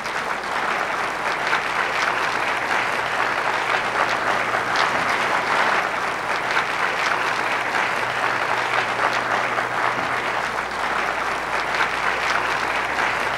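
Applause from a large seated audience, swelling in at the start and then holding steady.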